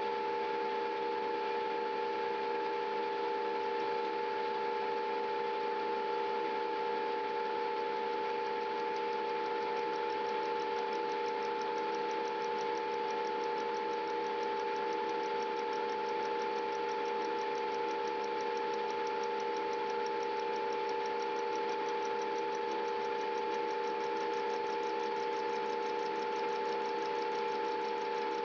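Metal lathe running steadily, its motor and drive giving a constant hum with a steady mid-pitched whine.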